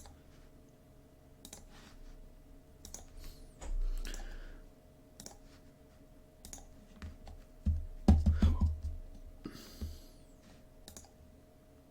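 Computer mouse clicks and keyboard keystrokes, scattered and irregular. There is a dull low thump about four seconds in and a louder cluster of thumps and knocks about eight seconds in.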